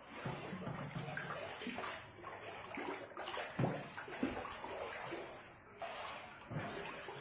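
Water sloshing, with small irregular splashes.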